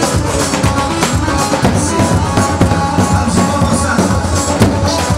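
Kurdish wedding dance music from a live band, with a steady drum beat under keyboard.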